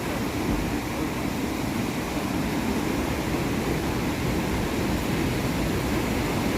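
Steady rush of sea surf, with wind on the microphone.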